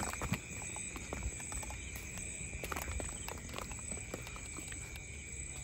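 Steady high-pitched insect trilling, typical of crickets at night, with irregular light clicks and taps scattered through it, a little more often near the start.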